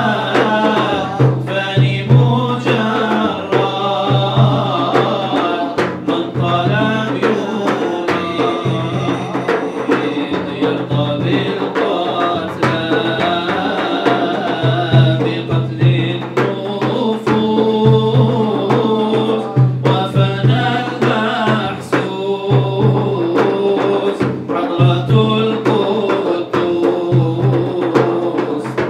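A man singing an Arabic devotional qasida into a microphone, with long, bending melodic lines, over a steady beat of hand drums.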